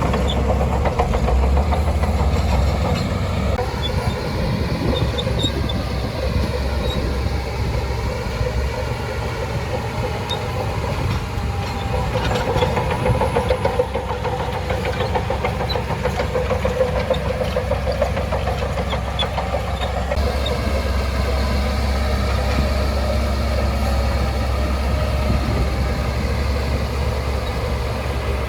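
Diesel engine of a Shantui DH17C2 bulldozer running steadily at work, its pitch rising and falling slightly.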